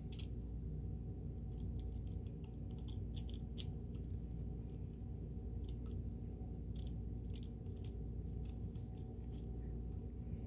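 Nylon pantyhose being pulled and rubbed through a sewing machine's upper thread tension discs to clean them, making short, irregular scraping and rustling sounds over a steady low hum.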